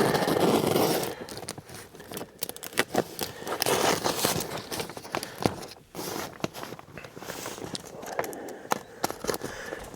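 Rustling, crinkling and scraping of materials being handled at close range, with many scattered clicks and light knocks.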